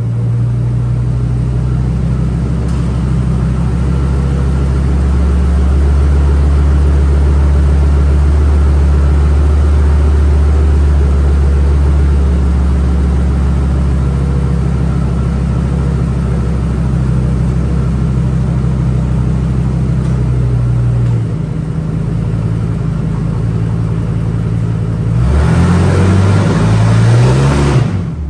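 Ford Triton 6.8L V10 engine running at a steady idle, changing pitch about two-thirds of the way in, then revved up and down a few times near the end.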